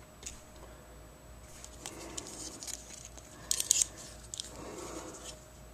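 Light metallic clicks from small multi-tool scissors on Leatherman Wave multi-tools being worked open and shut and handled. A quick run of sharp clicks about three and a half seconds in is the loudest.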